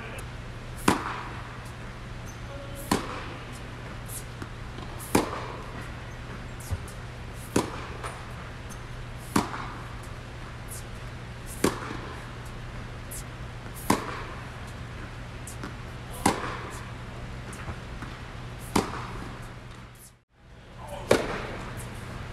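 Tennis racquet striking the ball on topspin backhands, a sharp pop about every two seconds with a short echo off the indoor court walls. Fainter knocks fall between the strikes over a steady low hum, and the sound briefly drops out about twenty seconds in.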